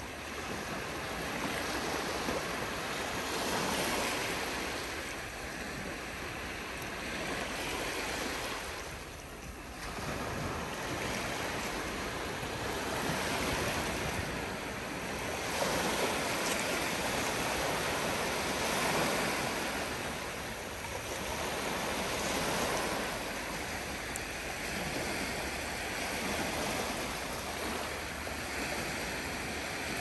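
Gentle sea surf: small waves breaking and washing onto the shore one after another, a steady hiss that swells and ebbs every few seconds, with a brief lull about nine seconds in.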